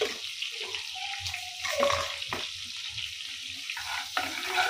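Cumin seeds sizzling in hot oil and butter in a nonstick kadhai, stirred with a steel spatula, with a few sharp knocks of the spatula against the pan about two seconds in.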